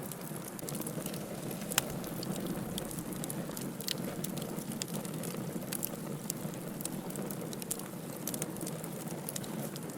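Wood campfire burning: a steady hiss with many sharp crackles and pops throughout, one loud pop a little under two seconds in.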